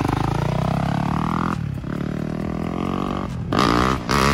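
Yamaha YZ250F dirt bike's 250cc four-stroke single-cylinder engine revving up and down as the bike pulls away, with a louder burst of rising revs near the end.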